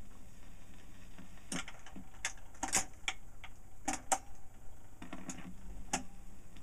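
Record changer on an old portable 78 rpm record player cycling between records: a series of irregular mechanical clicks and clunks as the tone arm swings out from the centre to the record's edge, over a steady low hum.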